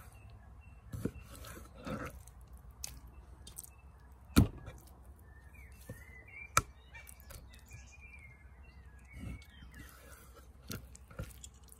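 A knife slicing raw chicken breast into strips on a wooden cutting board, the blade knocking on the board at irregular intervals, loudest about four seconds in. Birds chirp faintly in the middle.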